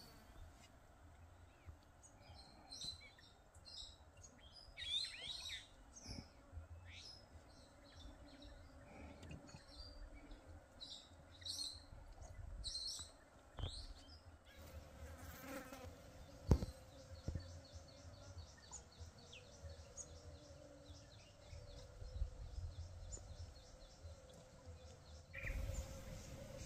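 Faint birds chirping and insects buzzing. A fast, evenly repeated ticking call runs through the second half, and a single sharp knock comes about two-thirds of the way through.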